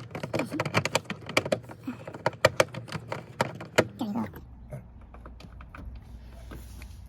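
A quick, irregular run of small plastic clicks and knocks as the tail-light bulb socket and LED bulb are handled, stopping about four seconds in and leaving a low steady hum.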